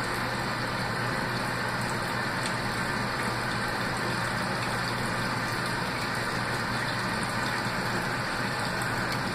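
The Laundry Alternative compact fully automatic washer filling its tub with water for the first rinse: a steady rush of incoming water over a low, even hum.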